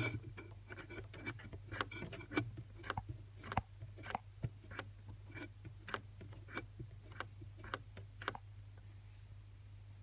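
Light, irregular clicks and ticks, one or two a second, from fingers handling the video head drum of an opened Sony BVW-35 Betacam deck, over a steady low hum.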